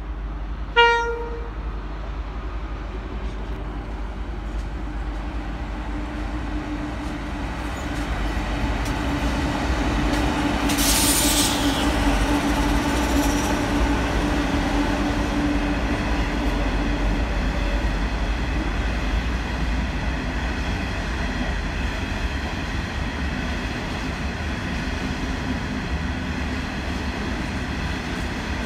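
Diesel-electric freight locomotives hauling a coal train sound their horn once, briefly, about a second in. The locomotives' engines then run past, followed by the coal hopper wagons rolling by with a steady rumble and clickety-clack of wheels over the rail joints. There is a short burst of hiss about eleven seconds in.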